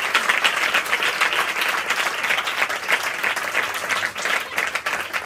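A room full of people clapping their hands in dense, steady applause.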